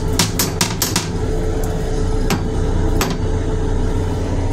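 Plastic toilet seat being handled and raised, giving a quick run of sharp clicks and knocks in the first second and two more a little later. Under it runs the steady low rumble and hum of the M7 railcar.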